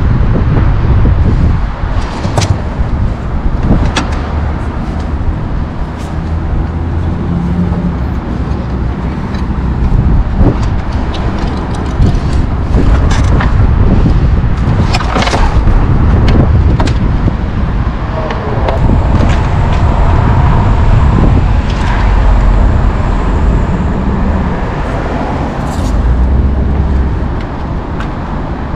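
Steady low rumble of road traffic, with scattered clicks and rustling from hands working wiring and plastic trim inside a car boot.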